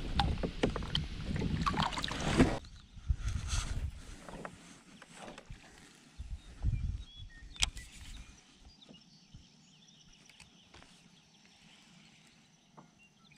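Water splashing and swirling beside a kayak as a bass is let go from the hand, for about two and a half seconds, then quiet with a few light knocks and clicks.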